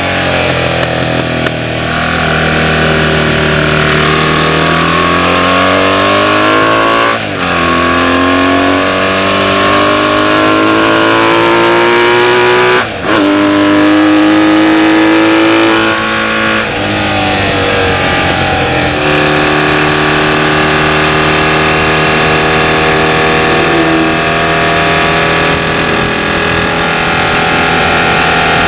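Vintage BMW flat-twin racing motorcycle engine at full throttle, heard onboard: the revs climb and cut sharply twice at upshifts, hold high, then fall to a lower steady note about two-thirds through as it slows. Heavy wind rush runs under it.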